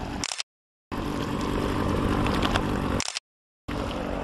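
Steady splashing of swimmers kicking in the water, mixed with wind on the microphone. The sound cuts to dead silence twice for about half a second.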